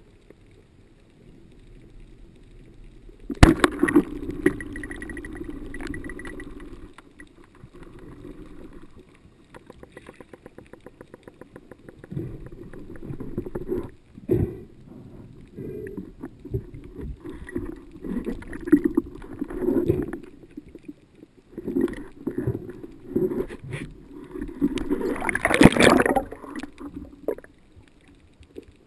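Rubber-band speargun fired underwater: a single sharp crack about three and a half seconds in, followed by a few seconds of rushing water noise as the shaft and line go out toward a golden grey mullet. After that, the murmur and irregular knocks of water around the diver, with a loud rushing burst near the end.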